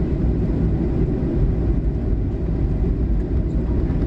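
Cabin noise of a Boeing 737-800 taxiing: a steady low rumble from its CFM56 engines at taxi power and the wheels rolling on the taxiway, heard from inside the cabin.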